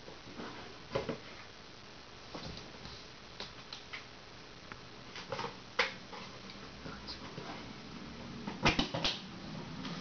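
Faint handling noise: scattered light clicks and knocks, the loudest cluster shortly before the end. A low steady hum comes in during the second half.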